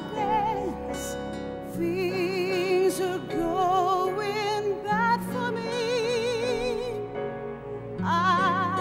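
Operatic singing with a wide vibrato over sustained orchestral chords that change about every three seconds.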